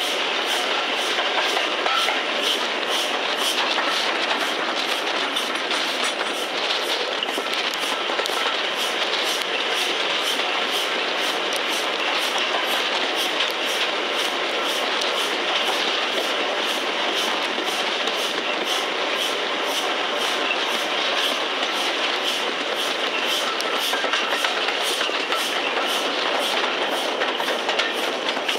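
Steam-hauled train running, heard from an open carriage window behind an LMS Stanier Class 5 4-6-0 locomotive: a steady rush of running and wind noise with a faint regular beat about twice a second.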